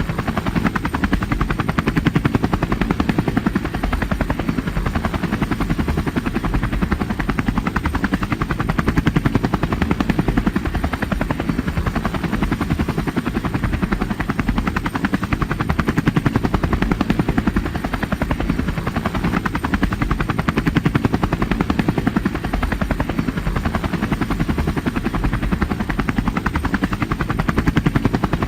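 Helicopter in flight: the rotor blades chop in a rapid, even rhythm that holds steady in level throughout.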